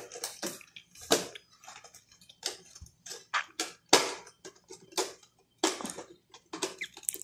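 Small plastic spring toy (slinky) being handled, its coils clicking and slapping together in many short, irregular clicks.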